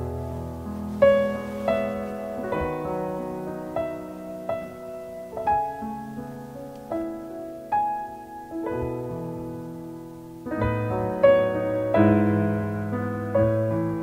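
Background piano music: gentle, slow notes and chords.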